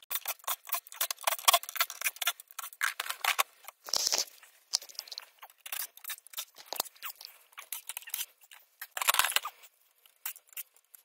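Screwdriver working screws out of the steel case of a rack-mount network switch: a quick run of small metal clicks and scrapes, with a couple of louder scraping rustles about four and nine seconds in.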